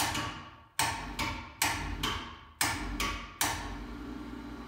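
Pittsburgh 440 lb electric ceiling hoist jogged from its pendant remote: about eight sharp clunks in quick succession, each ringing briefly, over a low motor hum as the hook lowers.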